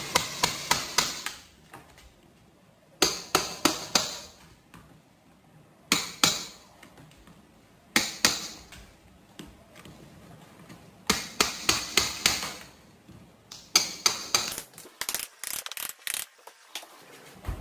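Hammer tapping the back of a pry bar, metal on metal, to drive it under a carpet tack strip nailed to a plywood subfloor and pry the strip up. It comes in quick runs of several sharp taps, about six runs a few seconds apart.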